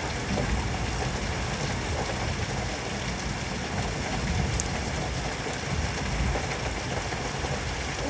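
Steady rain falling in a severe thunderstorm, an even rushing hiss with a couple of faint ticks.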